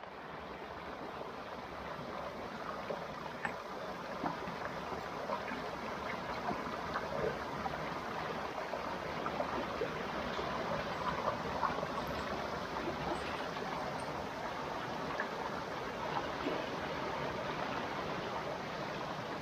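Shallow rocky forest stream rushing and gurgling over stones in a steady watery hiss, growing gradually a little louder.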